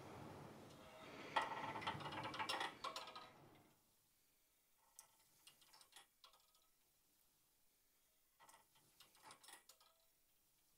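Merrithew V2 Max Plus Pilates reformer clicking and rattling softly as the carriage slides on its rails against the springs and the straps move through slow leg circles. The clicking is denser for the first few seconds, then thins to faint, scattered clicks.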